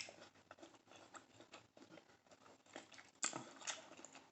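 Faint eating sounds up close: soft wet clicks and smacks of chewing shrimp, with a slightly louder smack about three seconds in.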